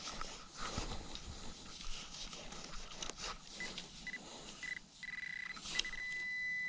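Pinpointer probe scraping through beach sand, then its high beeping alert about halfway through: short beeps coming closer together and running into a steady tone as the tip nears a buried coin.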